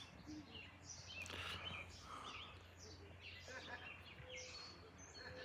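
Birds chirping and calling in quick, short notes, over a faint steady low hum.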